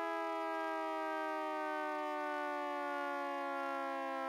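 Synthesized ACA Hurricane MKII civil defense siren, a chord of several tones sliding slowly and steadily down in pitch as it winds down.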